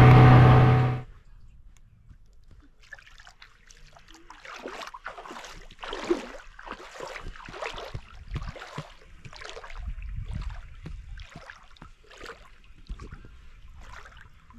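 1997 Mercury 125 hp two-stroke outboard running loudly, then stopping abruptly about a second in. Water then laps and sloshes quietly in irregular swells.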